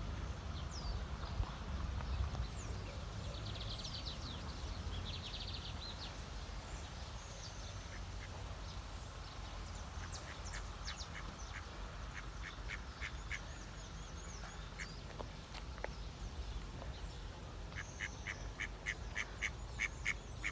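Ducks quacking in a series of short, clipped calls, scattered at first and coming quickly, several a second, near the end. A steady low wind rumble runs underneath, with a few small bird chirps a few seconds in.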